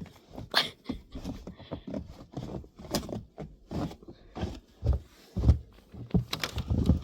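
Footsteps crunching through deep snow, a run of irregular steps about two to three a second.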